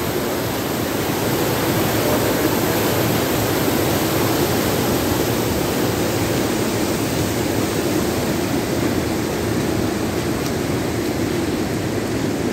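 Flooded river in spate, its rushing water making a steady, even roar.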